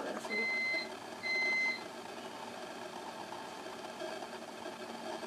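Two electronic beeps, each about half a second long and a little under a second apart, over a low steady hum.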